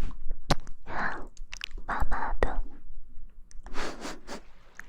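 Close-miked ASMR sounds: a few soft breathy hisses broken by sharp clicks.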